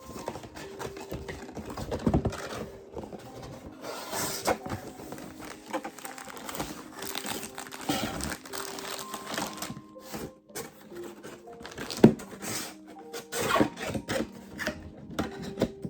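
Packaging being opened and handled: crinkling and tearing with scattered sharp clicks and knocks, the loudest about twelve seconds in. Soft background music with held notes plays underneath.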